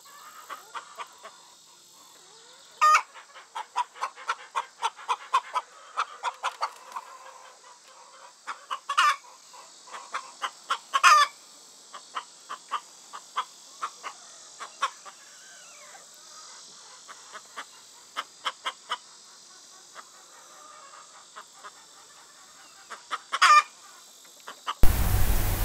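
Chickens clucking in quick runs of short clucks, with a few louder calls now and then. Shortly before the end the sound cuts suddenly to a loud, steady hiss.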